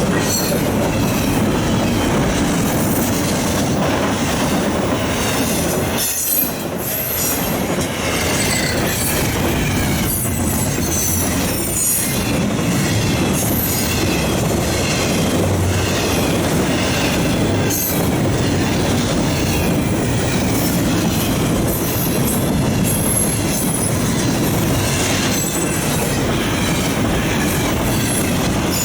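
Intermodal freight train's well cars rolling past at close range: steady wheel and rail noise with repeated clacks over the rail joints and high-pitched wheel squeal.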